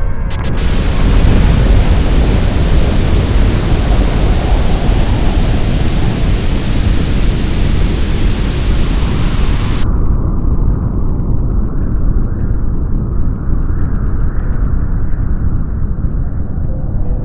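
Loud static-like hiss with a deep rumble under it. About ten seconds in the hiss cuts off suddenly, leaving only the low rumble.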